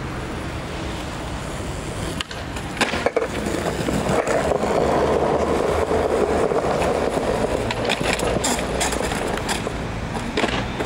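Skateboard rolling over stone paving, its wheels rumbling, louder from about four seconds in. Sharp clacks of the board striking the ground come around three seconds in, and several more near the end.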